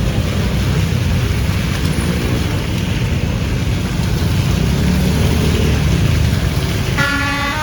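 Heavy, loud rumble and road noise from a bus. About seven seconds in, a multi-tone telolet horn starts playing a stepped melody.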